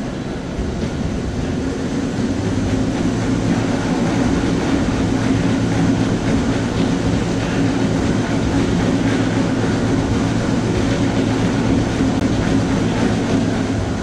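Assault Runner curved non-motorised treadmill being run on: a steady low rumble with a fast, even clatter from its belt, a little louder from about two seconds in.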